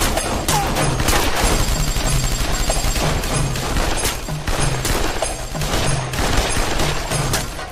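Heavy exchange of gunfire: many shots in quick succession, several guns firing over one another without a break.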